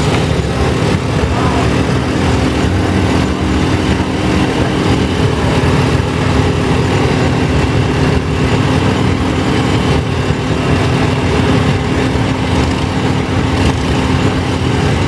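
Antique farm tractor engines running steadily as a line of tractors drives slowly past, with a constant low rumble and an even engine hum.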